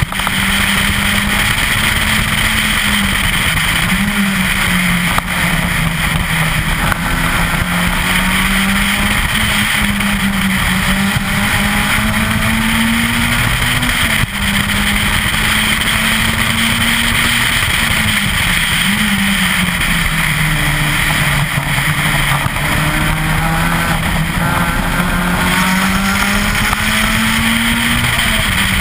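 Citroën Saxo VTS 16V rally car's 1.6-litre 16-valve four-cylinder engine driven hard on a stage, the revs climbing and dropping again and again through gear changes and corners, over steady wind and road noise.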